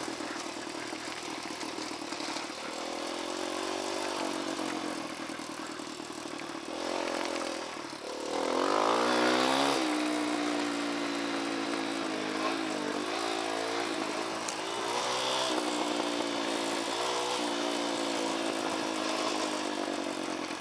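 Dirt bike engine running on the trail at low revs, its note uneven. About eight seconds in it revs up sharply, the loudest moment, then holds a higher note with several short throttle blips.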